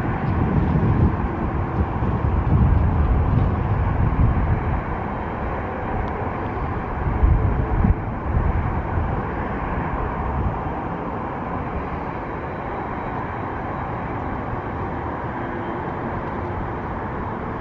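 Distant Antonov An-124 taxiing, its four D-18T turbofan engines running with a steady broad jet noise. Uneven low rumbling runs through the first half and settles about halfway through.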